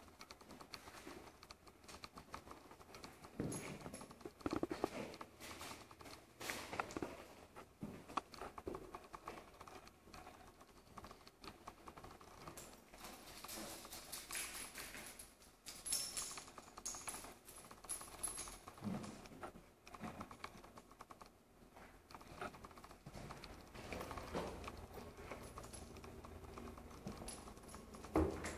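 Faint, irregular clicks and knocks, typical of footsteps on a bare concrete floor and of the camera being handled while someone walks.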